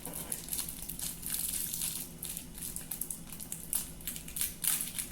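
Irregular crinkling and crackling from hands working slime and its plastic packaging.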